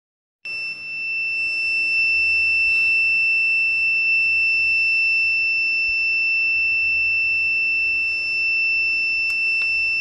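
Alarm buzzer of a 7.5 kW screw air compressor's MAM-890 controller sounding one steady high-pitched tone, a pre-alarm that the air filter's service hours are up. Two faint clicks come near the end.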